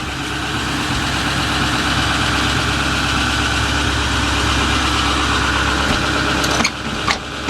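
2010 Ford F-450 wrecker's turbo-diesel engine idling steadily, with two brief clicks near the end.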